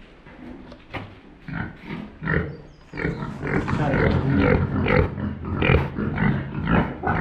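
Pigs grunting in their pens: a few scattered grunts at first, then from about three seconds in a loud, busy run of overlapping grunts and calls.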